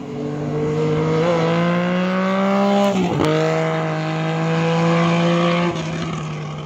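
A vehicle engine accelerating hard through the gears: the pitch climbs, drops at a shift about three seconds in, climbs again, then falls off near the end as the throttle closes.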